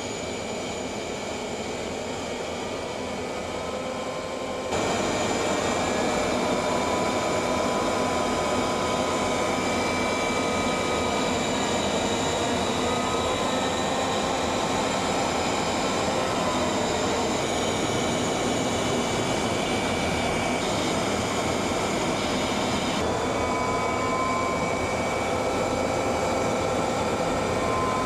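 Jet aircraft noise in flight: a steady rushing with high whining tones that drift slightly in pitch. It gets suddenly louder about five seconds in and shifts abruptly a few more times.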